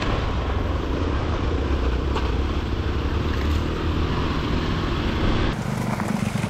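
Hero Xpulse 200 single-cylinder motorcycle riding along, its engine running under a steady rushing noise. The sound changes abruptly about five and a half seconds in.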